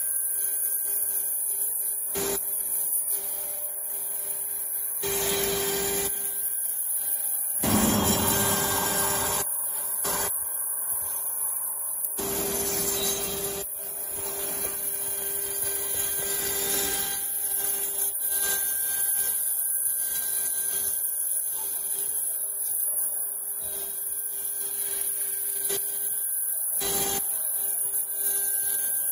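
CNC router spindle milling a block of wood with a small end mill: a steady high whine under a rasping cutting noise that swells in several louder stretches as the bit bites deeper, the loudest around eight seconds in.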